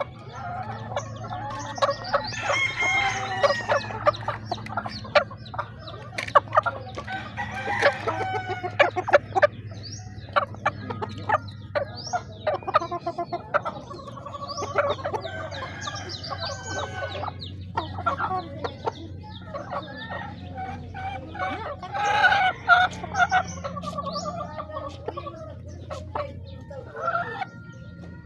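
Chickens clucking close by, with a rooster crowing a few times, over a steady low hum.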